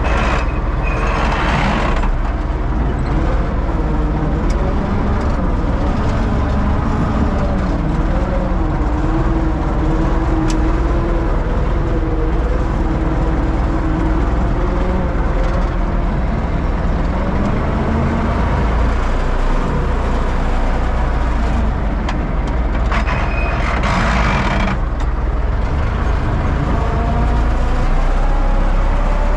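Universal U650 tractor's four-cylinder diesel engine running steadily, its pitch drifting slightly up and down. Two short hissing bursts come through, one near the start and one about three quarters of the way through.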